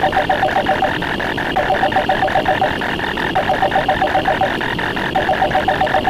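Stacked looping sound effects: a trilling telephone ring recurring about every two seconds over a fast, even run of clicks.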